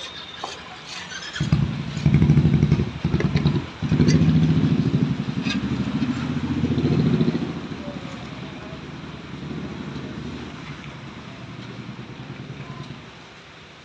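A motorcycle engine running close by. It starts about a second and a half in, is loudest for the next six seconds, then fades and goes on more quietly until near the end.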